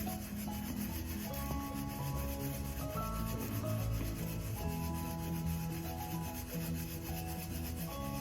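Slow background music of held notes changing in steps, over a steady scraping, rasping noise.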